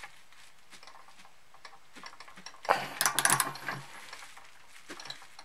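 Half-inch torque wrench ratcheting on a Centerlock lockring tool while tightening a Shimano disc rotor lockring: a quick run of metallic ticks about three seconds in, with a few lighter ticks before and after.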